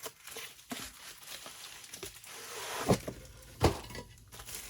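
A boxed men's watch box being handled and unpacked: rustling of packaging with small clicks, and two sharp knocks about three seconds in.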